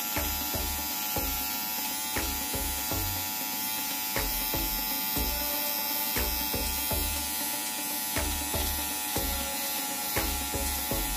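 King C. Gillette Style Master cordless beard trimmer buzzing steadily as it is run over the cheek, cutting stubble.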